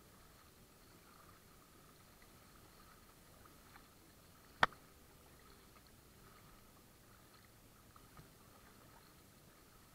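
Faint water sounds around a kayak moving across choppy lake water, with one sharp knock about halfway through and a few light ticks.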